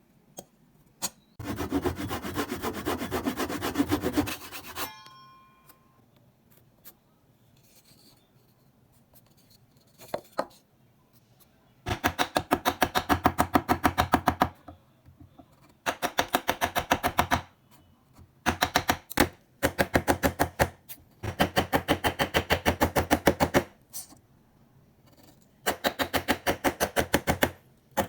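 Hand woodworking on wood: a scratchy stretch of scraping near the start, then several bursts of rapid, evenly spaced strokes, each lasting one to three seconds, with pauses between.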